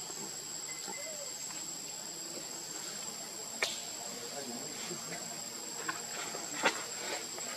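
Insects droning steadily on one high thin note, with a few sharp clicks over it: one about three and a half seconds in and a louder one near the end.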